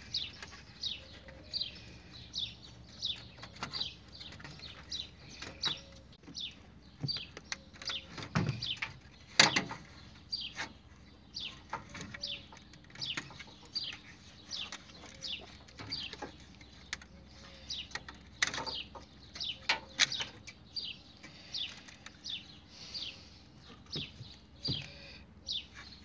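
A small bird chirping over and over, short high falling chirps about one or two a second, with a few sharp clicks and knocks now and then.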